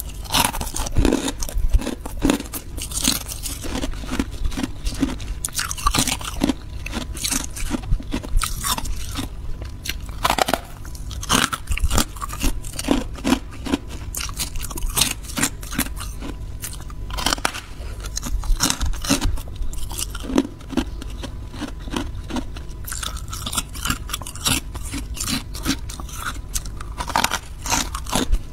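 Freezer frost being bitten and chewed close to the microphone: a dense, irregular run of crisp crunches.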